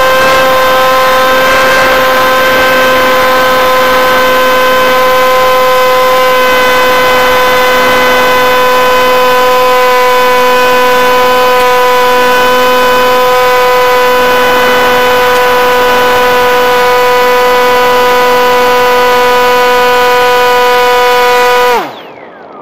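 Bixler v1.1 RC glider's electric motor and propeller running steadily under power in a climb: a loud, steady buzzing whine over rushing air, its pitch sagging very slightly. About 22 seconds in, the power is cut and the whine drops in pitch and stops.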